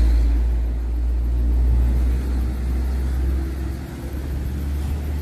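Road traffic going past: a vehicle rumbling by, the rumble easing off in the second half.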